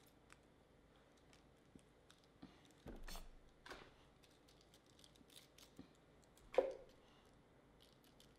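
Red cabbage leaves being pulled and torn apart by hand: faint, scattered crisp crackles and snaps, a few louder ones about three seconds in and one sharp louder snap about six and a half seconds in.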